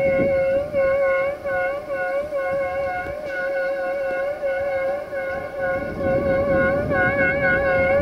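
Two-tone air horn of an LDH diesel-hydraulic locomotive sounding one long continuous blast, its two notes wavering a little in pitch. A low rumble swells under it about six seconds in.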